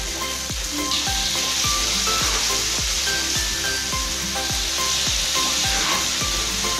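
Corn fritters (dadar jagung) frying in hot oil in a wok: a steady sizzle. Background music with a regular beat about twice a second plays underneath.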